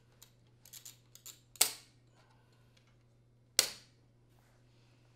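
Plastic roller assembly being snapped onto the side of a wire dishwasher upper rack: a few light clicks of plastic against wire, then two sharp snaps about two seconds apart as it locks into place.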